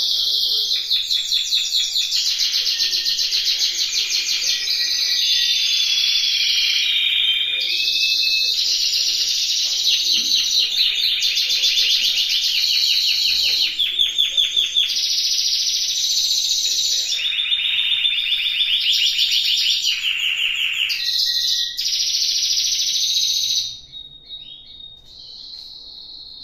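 Timbrado canary song: a long, loud run of rapid trills and rolls that switch from one phrase to the next every second or two. The song stops sharply near the end, leaving a faint thin note.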